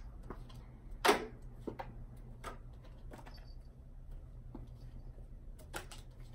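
Playing cards being thrown: a handful of short, light clicks and snaps, the loudest about a second in and another near the end.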